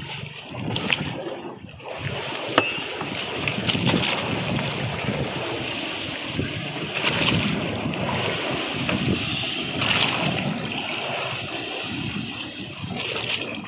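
Sea water sloshing against a small wooden fishing boat's hull, with wind on the microphone and scattered splashes and knocks as skipjack tuna are hauled in over the gunwale on a handline; one sharp knock stands out about two and a half seconds in.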